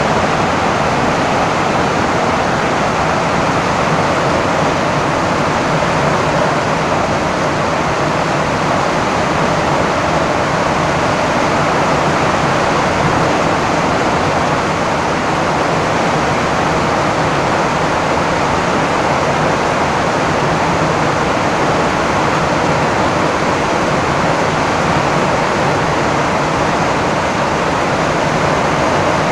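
Heavy, steady rain drumming on a tin roof.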